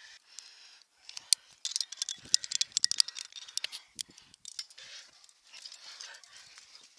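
Climbing quickdraws and carabiners clinking and rattling against each other on a harness gear loop as one is handled: a quick run of sharp metallic clicks from about a second in, lasting a couple of seconds, then softer rustling.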